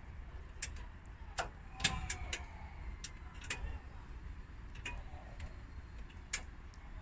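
Faint, irregular metallic clicks and ticks, a dozen or so spread over several seconds, as a six-cylinder Renault truck diesel with its valve cover off is turned over slowly by hand, with a low rumble underneath.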